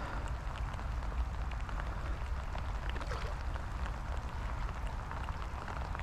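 Steady rain with scattered individual drops ticking, over a constant low rumble of wind on the microphone.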